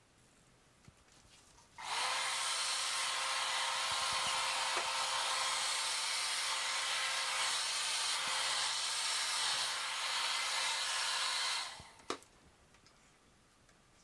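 Hair dryer on its cool setting, switched on about two seconds in and running steadily with a rush of air and a motor whine, blowing wet acrylic paint across a canvas. It winds down near the end, followed by a single click.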